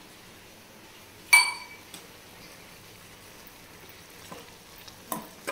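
A single sharp, ringing clink of steel utensils against a steel kadai about a second in, followed near the end by a few light taps and scrapes of a slotted steel ladle in the pan of cooking goat intestine.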